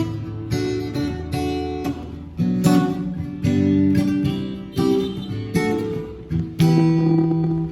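Acoustic guitar strumming chords, each chord struck and left to ring, changing every second or so.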